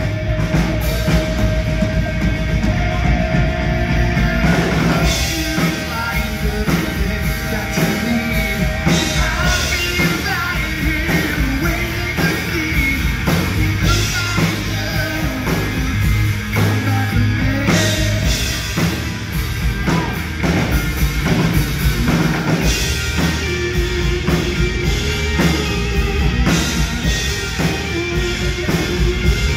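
Live rock band playing, with a male lead singer over electric guitar and drums.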